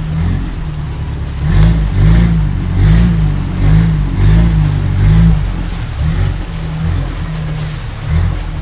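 A long-tail boat's engine running as the boat moves along the canal, growing louder in uneven swells through the middle before settling back to a steady drone.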